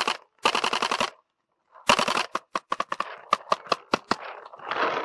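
Paintball markers firing in rapid strings of sharp pops: a fast burst, a short break, another fast burst about two seconds in, then separate shots at about five or six a second.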